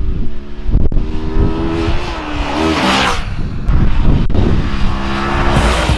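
Motorcycle engine running as the bike rides toward and past, its note falling as it goes by about three seconds in.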